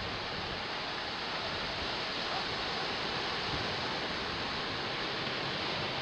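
Steady, even rush of ocean surf with wind, with no single wave break or call standing out.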